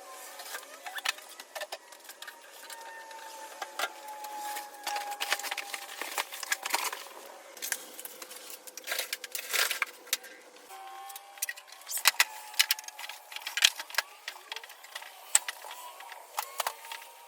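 Unpacking noise as welder parts and packaging are handled: an irregular string of crinkles, clicks and small rattles.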